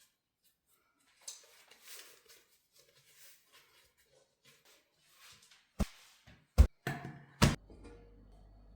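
Soft rustling and handling, then three sharp knocks about a second apart, after which a steady low hum starts.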